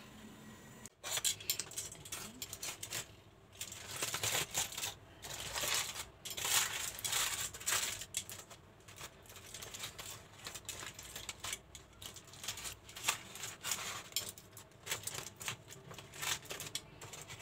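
Aluminium foil crinkling and rustling in irregular bursts as a foil wrapping on a plate is pulled open.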